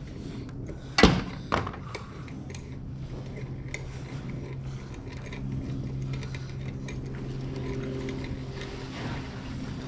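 Metal brake parts and hand tools being handled: a sharp metallic clank about a second in, a smaller one just after, then light clinks and ticks. A steady low hum runs underneath.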